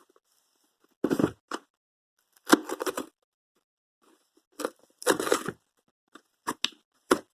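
Cardboard subscription box being pulled open by hand: about seven short bursts of cardboard tearing and crackling, with quiet gaps between them.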